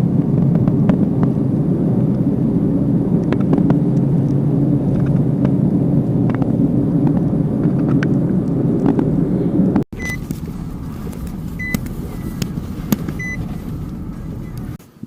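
Steady low road-and-engine rumble inside a moving car, with faint clicks. After an abrupt cut about ten seconds in, a quieter hum with several short high beeps.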